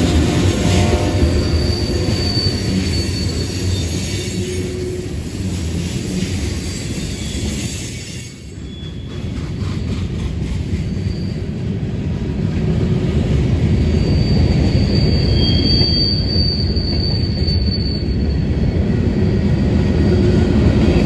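Freight train's tank cars and covered hopper cars rolling past close by: a steady rumble of steel wheels on rail, with high-pitched wheel squeal about two seconds in and again for several seconds near the end. The rumble dips briefly about eight seconds in.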